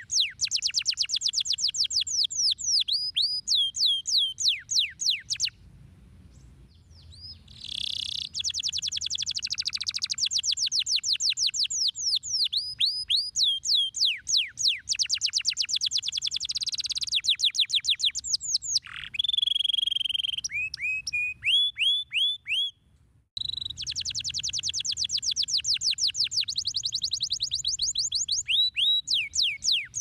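Domestic canary singing: fast trills of rapidly repeated downward-sweeping notes, changing from one rolled phrase to the next, with a pause about six seconds in and a long held whistle a little before twenty seconds.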